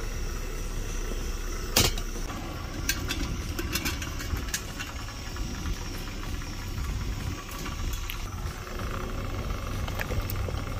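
Steady low rumble under clanks of a stainless steel steamer pot and its insert being handled, with one sharp metal clank about two seconds in and a few lighter clinks after.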